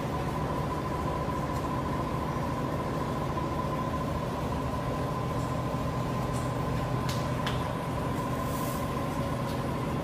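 Steady mechanical hum with a thin, even whine above it, unchanging throughout.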